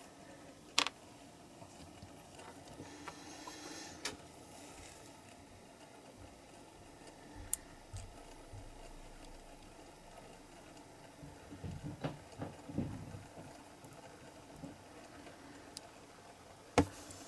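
Scattered small clicks and taps of hands handling tiny model parts, a tin driver figurine being pressed into a toy car's plastic seat unit, with a soft patch of fiddly handling noise about twelve seconds in and the sharpest click near the end.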